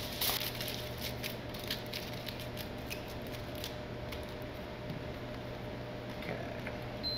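Aluminum foil crinkling in short irregular clicks as it is folded and pressed around the edge of a metal plaque, over a steady low electrical hum.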